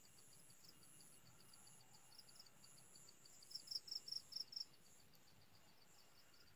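Faint evening insect chorus: a rapid, evenly repeated high chirping, several chirps a second, with a thinner, higher trill in short repeated phrases above it; the chirping swells louder for about a second in the middle.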